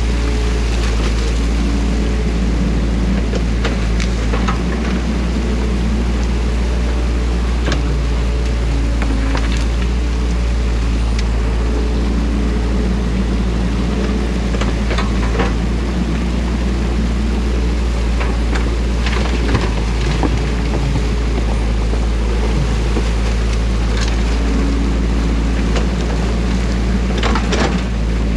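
Compact excavator's diesel engine running steadily close by, its pitch shifting slightly as the hydraulics work the arm, over water rushing through the breach in a beaver dam. A few sharp knocks come through now and then.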